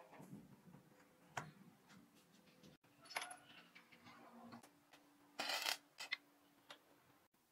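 Light metallic clinks as a steel chain link is handled against a steel tube in a vise, then a short crackling burst of an electric arc welder, under half a second long, tacking the link to the tube.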